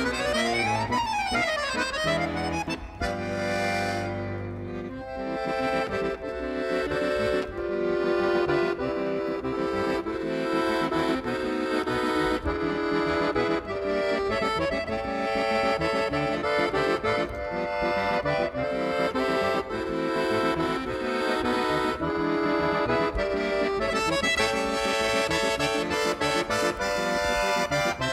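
Solo chromatic button accordion playing fast concert music: quick runs sweeping up and down at the start, a held low chord a few seconds in, then rapid passages over chords.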